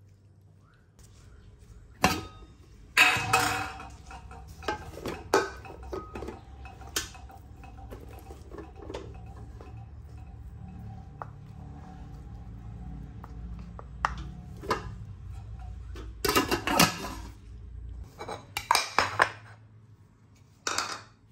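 Metal utensils clinking and scraping against dishes and a pot, in a dozen or so sharp knocks scattered through, with clusters near the start and around two-thirds of the way in. A low steady hum sits under most of it and stops near the end.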